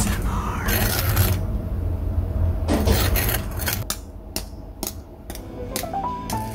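Freshly double-fried Korean fried chicken wings sizzling and crackling in hot oil. About four seconds in the hiss drops away to scattered sharp crackles and clicks as the wings are handled, and a short rising tune of music starts near the end.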